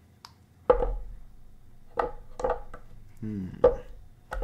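Heavy statue parts knocking against each other and against the statue base as a leg piece is fitted into place: four sharp, separate knocks.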